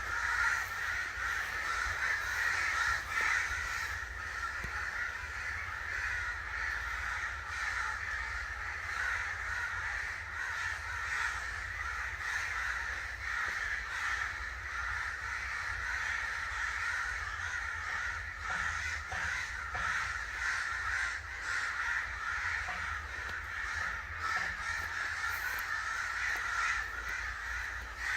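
Many crows cawing at once in a steady, unbroken chorus of overlapping calls.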